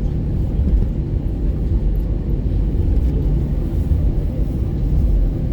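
Steady low rumble of an Airbus A320 cabin on the ground after landing, from its engines and airflow.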